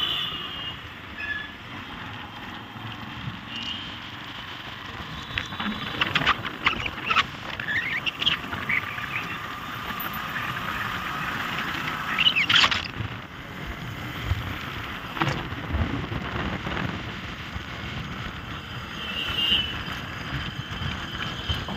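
Road and traffic noise heard from a moving motorcycle: a steady rush of wind and passing vehicles, broken by a few short sharp sounds and brief high tones, the loudest about twelve and a half seconds in.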